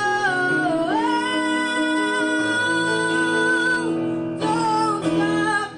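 A young girl singing a ballad into a microphone over instrumental accompaniment, holding one long note through the middle. The song ends near the end, and the music stops abruptly.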